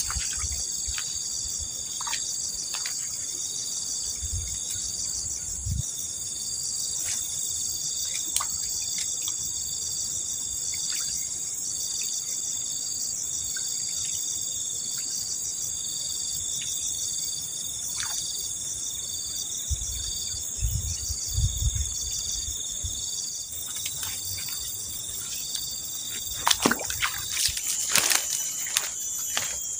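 Chorus of insects trilling steadily at a high pitch, pulsing in a regular rhythm, with faint scattered clicks and a few sharper clicks near the end.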